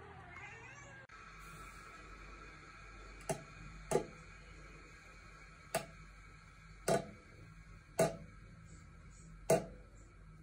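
Water drops falling from the tap into a ceramic bathroom sink: six single drips at uneven gaps of about a second.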